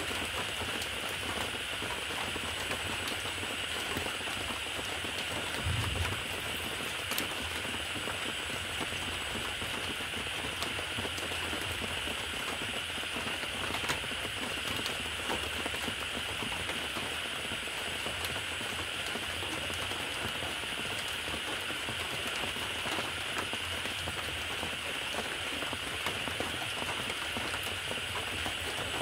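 Steady rain, a dense even patter with scattered sharper ticks and a brief low thump about six seconds in.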